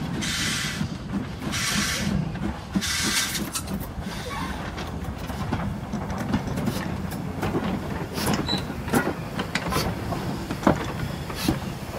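Ivatt Class 2 2-6-2T steam tank locomotive no. 41298 and a brake van rolling slowly past over a steady low rumble. For the first few seconds three soft exhaust chuffs come about a second and a half apart. Then the rods and wheels clank and click over the rail joints as it draws alongside.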